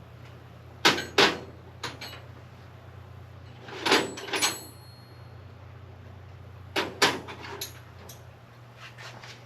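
Hand tools clinking and clanking against metal in a car's engine bay, as a wrench and socket are fitted to a tight thermostat-housing bolt. The clanks come in a few short clusters, one with a brief metallic ring.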